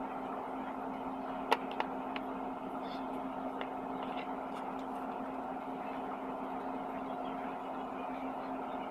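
Electric box fan running with a steady hum. A few sharp clicks about a second and a half in.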